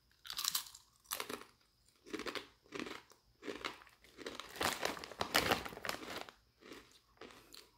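Crisp baked pita chips crunching between the teeth in a run of short, sharp bites and chews, with the crinkle of the foil snack bag as a hand reaches in for another chip around the middle.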